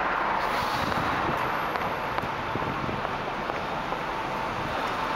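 Steady city street noise: a constant wash of traffic.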